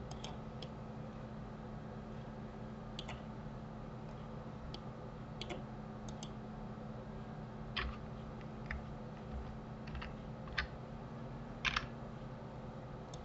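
Faint, irregular clicks of a computer mouse and keyboard, spaced a second or more apart, with a pair close together near the end, over a steady low hum.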